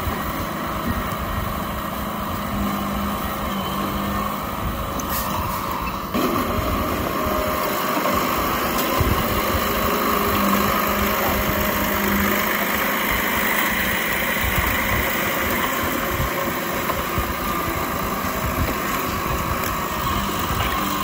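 Komatsu D31P bulldozer's diesel engine running steadily under load, a continuous drone that steps up in loudness about six seconds in.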